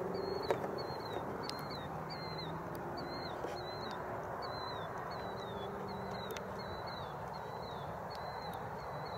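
An animal chirping: short, high, falling chirps repeating evenly a little under twice a second, over a steady background noise.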